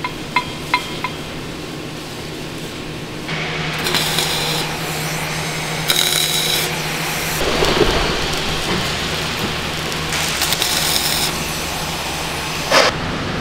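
Four light hammer taps on a steel pin and jig in the first second, each with a short metallic ring. From about three seconds in, the steady crackling hiss of arc welding takes over, with a low steady hum under it.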